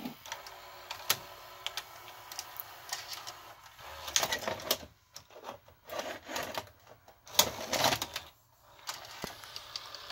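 Fisher FVH-4901 VCR's tape-loading mechanism working a VHS cassette: scattered clicks and clacks of levers and gears, with the loading motor whirring in three short spells in the middle. The loading belt driving it is loose.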